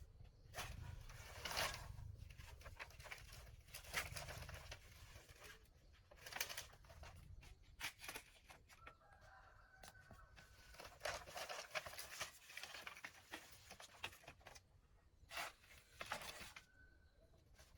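Chickens calling, with one drawn-out call about nine seconds in and a short call near the end, among repeated rustling and handling noises.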